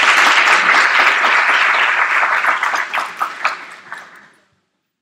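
Audience applauding. The dense clapping thins to a few scattered claps and dies out about four seconds in.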